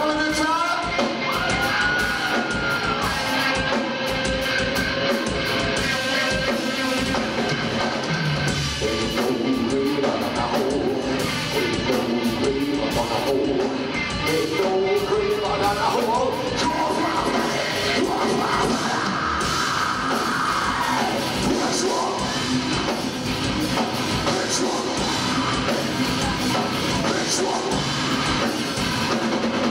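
Heavy metal band playing live: distorted electric guitar and drum kit, with vocals over the top.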